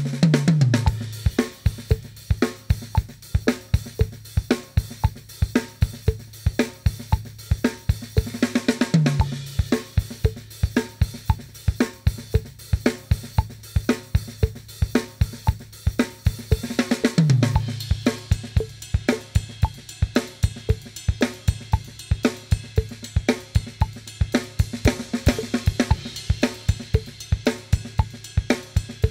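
Acoustic drum kit playing a funky, soca-style groove at 115 bpm. A sixteenth-note hi-hat opens on every beat, the bass drum is syncopated and the snare takes the backbeat on 2 and 4. A cymbal crash comes roughly every eight and a half seconds.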